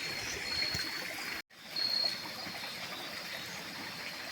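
Steady trickle of flowing water, with short high-pitched trills coming and going over it. The sound drops out completely for an instant about a second and a half in.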